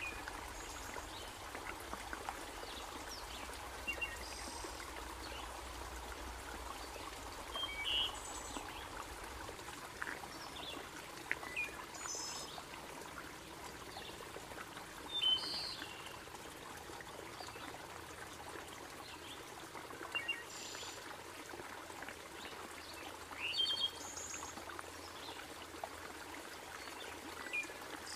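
Shallow, rocky creek trickling steadily, with short, high bird chirps every few seconds.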